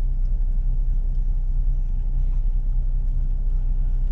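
Steady low rumble of a moving car, engine and road noise heard from inside the cabin.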